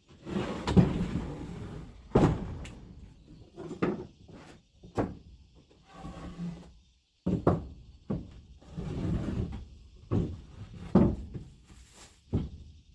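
Pieces of wood being handled, knocked and slid against each other: a series of about a dozen knocks and thuds with scraping and rubbing between them.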